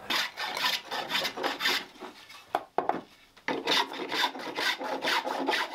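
Spokeshave shaving the handle of an ash hurley by hand: quick, repeated scraping strokes of the blade across the wood, with a pause of about a second in the middle. This is the hand-finishing stage that sets the hurl's shape and balance.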